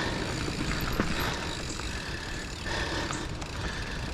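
Giant Fathom mountain bike rolling down a loose dirt trail, its tyres crunching over soil and grit, with a steady low wind rumble on the microphone. A single sharp knock comes about a second in.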